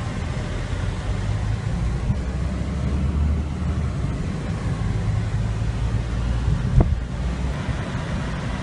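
Steady low rumble of a car driving at low speed, heard from inside the cabin, with one brief sharp sound about two-thirds of the way through.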